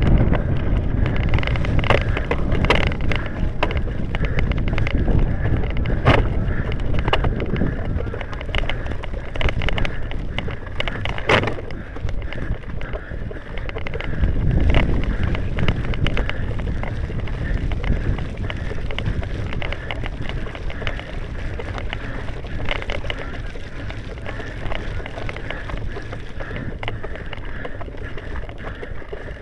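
Wind buffeting the camera's microphone as a steady low rumble, with frequent knocks and rustles from the handheld camera being moved. The rumble slowly gets quieter toward the end.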